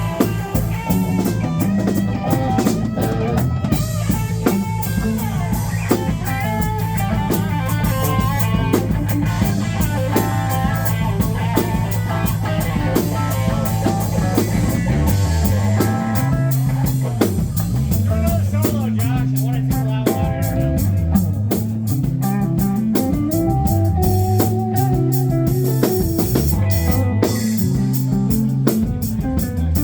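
Live rock band playing guitar, bass and drum kit. Held low bass notes give way to a moving bass line about halfway through.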